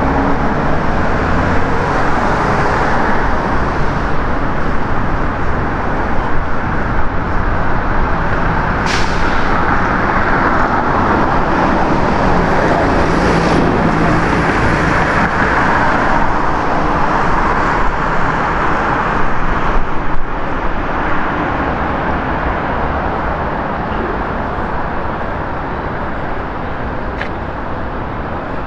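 Steady road traffic noise of cars passing, with a sharp click about nine seconds in and another a few seconds later.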